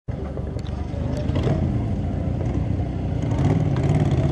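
Motorcycle engine idling with a low, steady note that grows a little louder about three and a half seconds in, with a few light clicks over it.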